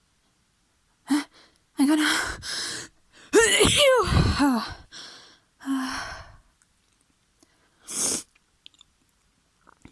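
A person sneezing: short gasping in-breaths as it builds, then one loud voiced sneeze about three and a half seconds in, followed by two shorter breaths.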